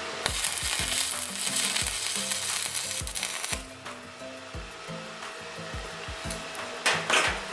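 Stick-welding arc from a 2.6 mm electrode at 75 amps, crackling and sizzling along a corner joint on steel box tube. It is loudest for the first three and a half seconds, then goes softer, and flares again briefly near the end.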